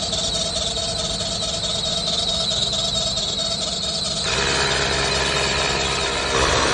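Small 12-volt tyre compressor running with a steady high whine; about four seconds in, a rushing noise joins it and grows louder near the end.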